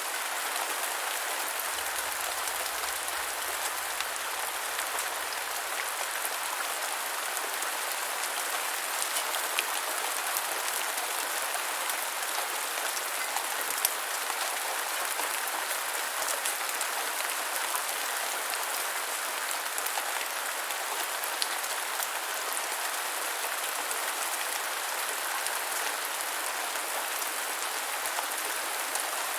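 Steady medium rain falling on a surface, an even hiss with scattered individual drops ticking.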